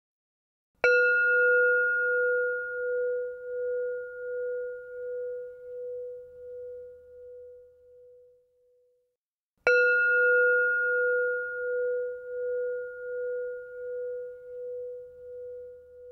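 Brass singing bowl struck twice with a mallet, about nine seconds apart. Each strike rings with a low pulsing hum and a higher overtone that fade away over about eight seconds.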